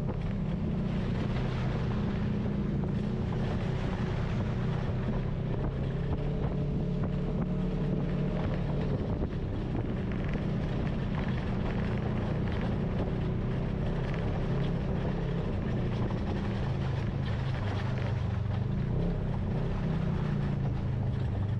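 Engine of a Polaris RZR side-by-side running steadily while driving along a dirt trail, with wind buffeting the onboard microphone.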